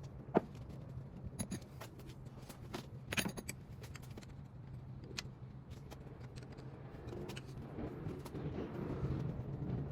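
Scattered metallic clicks and clinks of hand tools and bolts during removal of the timing chain cover from a Ford 302 Windsor V8, with scraping that builds near the end. A steady low hum runs underneath.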